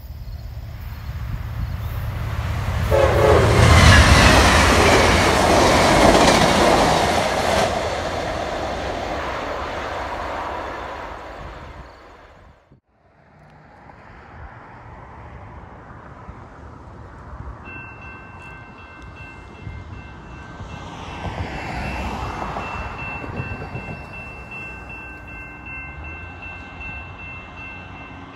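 A train approaches and passes at speed, loudest about four seconds in, its horn sounding briefly as it nears and its wheels clattering before the noise fades away. After a cut, a level crossing's electronic warning bell starts ringing steadily as the flashing lights come on and the gate arm lowers.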